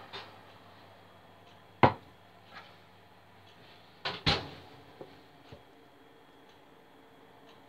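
A heavy ceramic casserole dish set down on a wooden chopping board with one sharp knock, then about two seconds later a double knock and clatter as its ceramic lid is handled and lifted off, followed by a few faint clinks.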